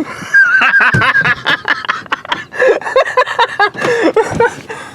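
Several young men laughing hard in quick, loud bursts, including a high-pitched, squealing laugh.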